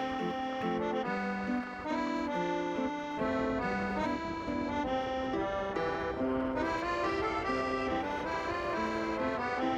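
Accordion music playing a lively melody.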